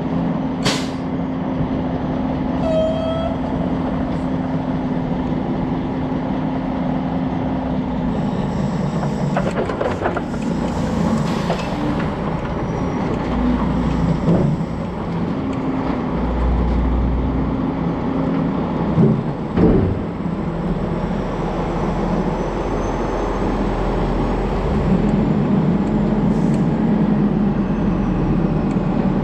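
Semi truck's diesel engine droning steadily as the loaded flatbed trailer rolls slowly, heard from a microphone on the trailer, with a few knocks from the trailer about ten, fourteen and twenty seconds in.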